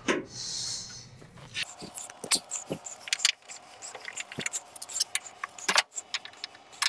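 A hand screwdriver working screws out of a washing machine's sheet-metal front panel: a short rustle, then an irregular run of small sharp metallic clicks and ticks.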